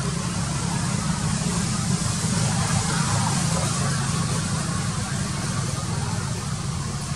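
A steady low mechanical hum, like an engine running, with an even hiss over it.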